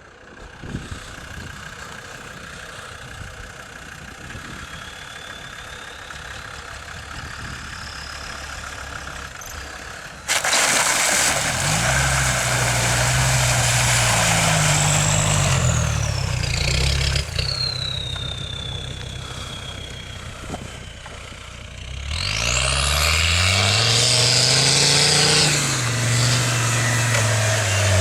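Off-road 4x4 engine running and revving: quieter for the first third, then suddenly much louder from about ten seconds in, with the revs rising and falling, dropping back briefly and climbing again near the end.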